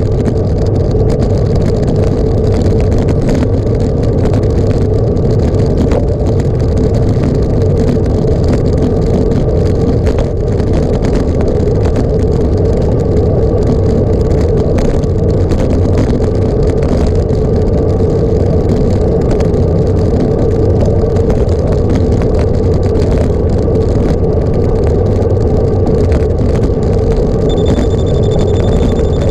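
Loud steady rumble of a vehicle in motion, with a constant droning hum and no change in pace. A faint high tone comes in near the end.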